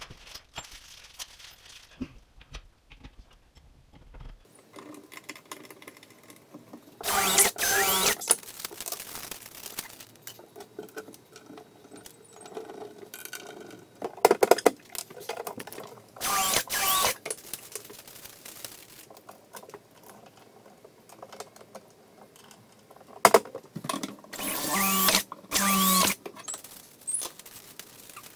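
DeWalt cordless drill running in about five short runs of one to two seconds each, its motor pitch wavering up and down, with quieter handling noise between runs.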